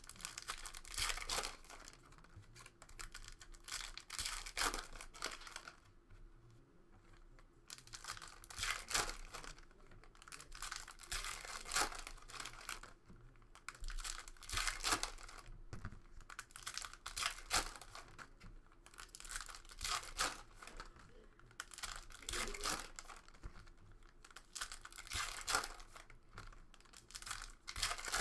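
Basketball card pack wrappers being torn open and crumpled: a run of short crinkling, tearing rustles, one every second or two.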